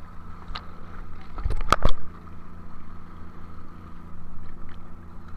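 Boat engine running steadily, with a short cluster of sharp knocks about one and a half to two seconds in, the loudest moment.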